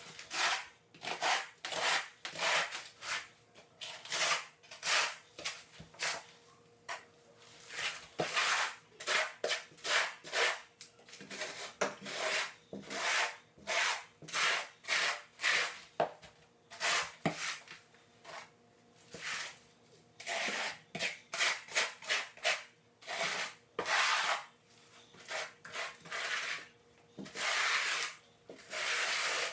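Quarter-inch notched steel trowel scraping and combing thin-set mortar across a plywood subfloor in repeated short strokes, one to two a second with brief pauses.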